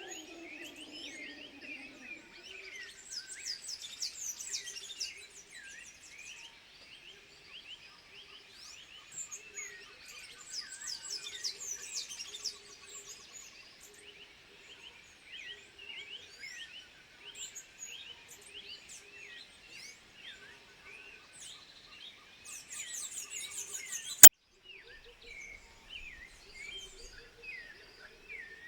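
Many high-pitched chirping animal calls overlapping, with bursts of rapid, higher twittering now and then, over a faint low pulsing. A single sharp click near the end is the loudest sound.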